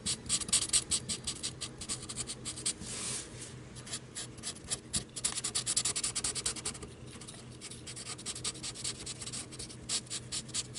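Black Sharpie marker scratching along the edge of a cardboard cutout in quick short strokes, several a second, as the edges are coloured black, with a brief lull about seven seconds in.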